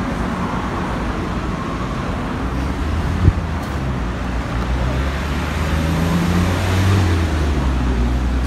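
Road traffic noise from a nearby street, with a low engine rumble growing louder over the second half. A single sharp click a little before the middle.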